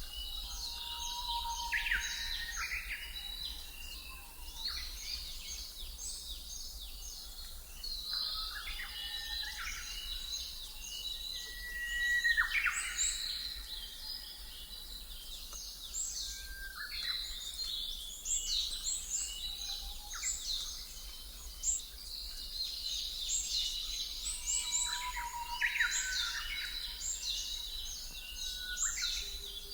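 A chorus of small birds chirping and trilling over one another, with a steady low rumble beneath.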